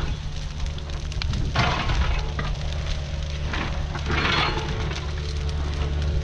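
Burn pile fire crackling and hissing, with two louder hissing surges about one and a half and four seconds in, over the steady low hum of the mini excavator's engine running.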